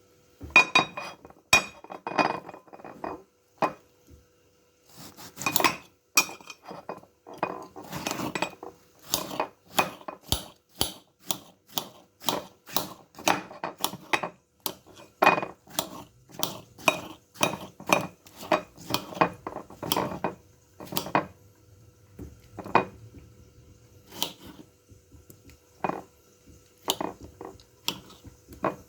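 Kitchen knife chopping tomato, the blade knocking sharply on the surface below in a long run of strokes, often one or two a second, with short pauses.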